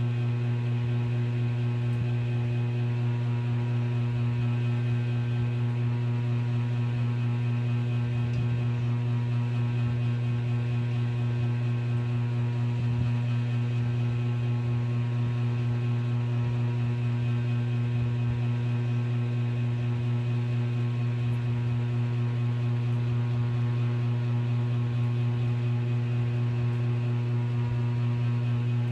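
Mabuhay Star ceiling fan humming steadily: a strong, unchanging low electrical hum with a stack of fainter higher overtones.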